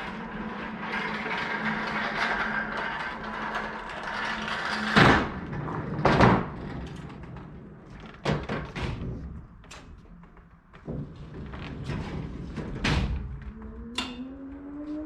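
A steady rumble, then a string of heavy metal clunks and thuds, the two loudest about five and six seconds in: a pallet jack moving a pallet-mounted toolbox down boards off a trailer.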